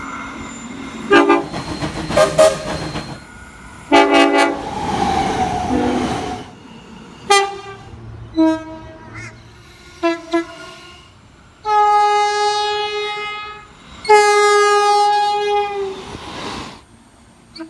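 Train horns sounding in a run of separate blasts: several short toots in the first ten seconds, then two long held blasts near the end, each a steady multi-note chord. The rumble and clatter of a passing train fill the gaps between blasts.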